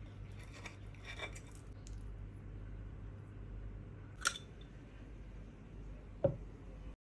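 Metal fork and spoon clinking and scraping against a ceramic plate, with faint clicks early, one sharp clink about four seconds in and a duller knock near the end, over a low steady hum.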